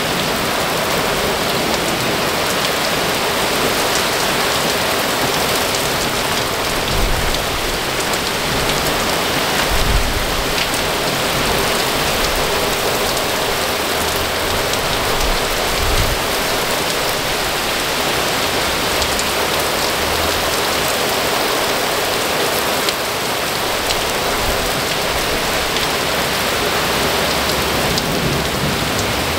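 Heavy thunderstorm rain pouring steadily, with a few brief low thumps about a quarter, a third and halfway through.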